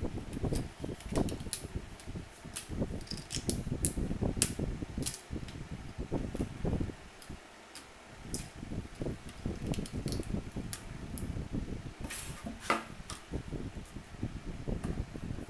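Hands peeling cut strips of marble-pattern decorative sheet off a plywood door panel and handling the sheet: irregular rustling, light knocks and sharp clicks, with a longer scrape near the end.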